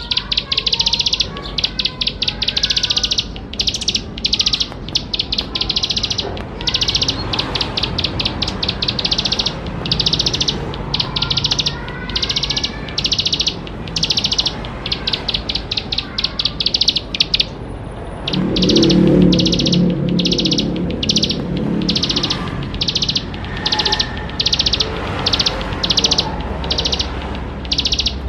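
Plain prinia (ciblek sawah) singing: short, high, rapid trilled phrases repeated about twice a second without a break. A low rumble sounds under the song for a few seconds about two-thirds of the way through.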